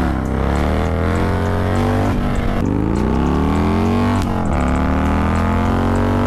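2001 Harley-Davidson Dyna FXDX T-Sport's Twin Cam V-twin, fitted with S&S cams and a Mikuni carb, running loud through a Thunderheader 2-into-1 exhaust. The engine note climbs for about two seconds and drops back sharply, twice, then climbs again.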